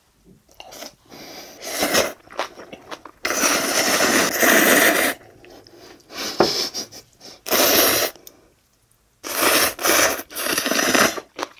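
Instant ramen noodles slurped loudly, close to the microphone: several long slurps, the longest nearly two seconds, with quieter eating noises between them.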